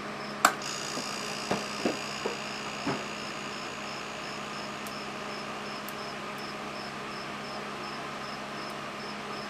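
A switch clicks about half a second in and a small hermetic compressor starts, running with a steady whine as it pumps air into a sealed fluorescent tube, building pressure.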